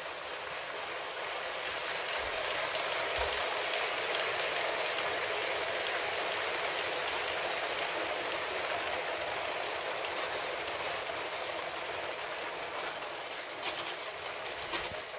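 A long Lego 60197 passenger train with many wagons running along plastic track, its plastic wheels making a steady rattling clatter as the wagons pass close by. The clatter builds over the first few seconds and then holds, with a few sharper clicks near the end.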